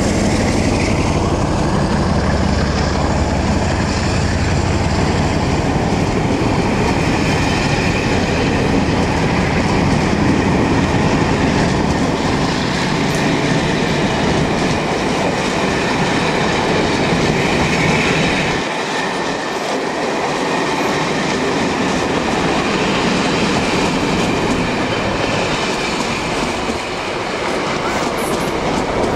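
Locomotive-hauled passenger coaches running past at speed: a steady rush and rumble of wheels on the rails with clickety-clack over the rail joints. The deep rumble drops away about two-thirds of the way through.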